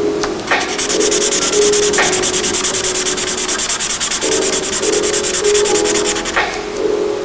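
Felt-tip pen scrubbing back and forth on paper, a fast, steady run of scratchy strokes while a block is filled in with colour, with a brief break a little after six seconds.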